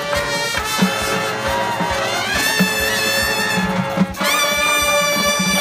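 Drum and bugle corps horn line playing sustained brass chords over drum strikes, with a line rising in pitch a little past the middle and a brief break about four seconds in before the full chord returns.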